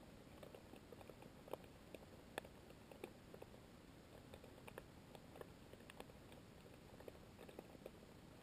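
Faint underwater crackle: scattered sharp clicks at irregular times over a low steady hiss, heard under the sea surface.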